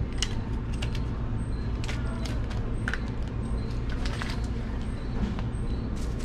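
Fast food restaurant room noise: a steady low hum with scattered light clicks and knocks.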